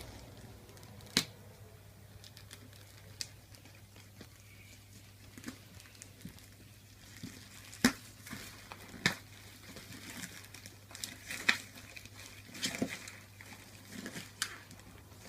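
A parcel being handled and cut open: cardboard and packing tape crinkling and tearing, with scattered sharp knocks and clicks, the loudest a little after a second in, near eight seconds and near eleven and a half seconds.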